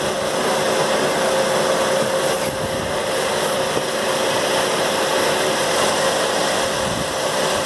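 Scallop cutting machine running steadily while cutting a scalloped edge along fabric: an even mechanical hum with hiss over it, unchanging throughout.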